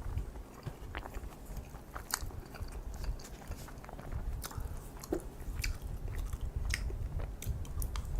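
Close-miked eating: chewing kimchi fried rice and kimchi, with irregular wet clicks and crisp crunches from the mouth.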